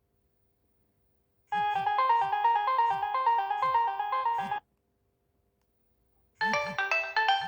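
Nokia 6070 polyphonic ringtone playing a short electronic melody over a steady beat for about three seconds, then stopping abruptly. After a pause, another ringtone starts near the end.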